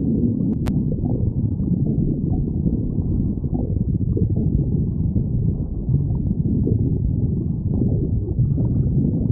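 Human stomach gurgling and rumbling: a continuous low, irregular churning. A single sharp click comes a little under a second in.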